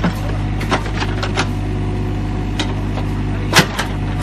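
Mini excavator's engine running steadily under load while the bucket digs into soil and stones, with sharp knocks and clatter of rock and bucket teeth; one louder knock about three and a half seconds in.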